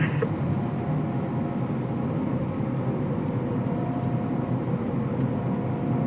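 Combine harvester running steadily, heard from inside its cab: an even engine and machinery drone with a faint steady whine.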